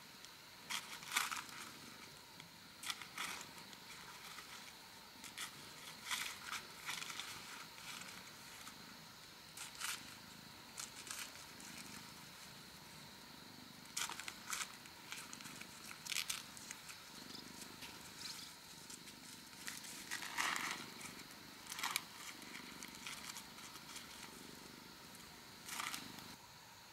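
A cat purring, a faint low pulsing sound heard mostly in the second half, among scattered sharp clicks and crackles.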